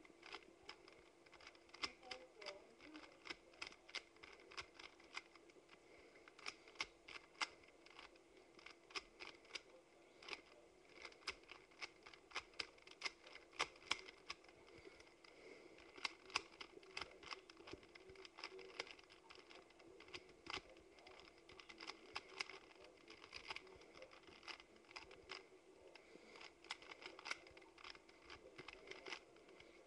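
Rubik's cube being turned quickly by hand: irregular plastic clicks and clacks as its layers are twisted, often several a second, with short pauses between runs of turns.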